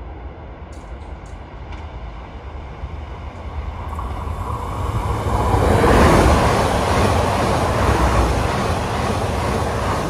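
Electric regional passenger train passing at speed: a rumble of wheels on rail that builds as it approaches, is loudest about six seconds in as the cars go by, then eases off as it moves away.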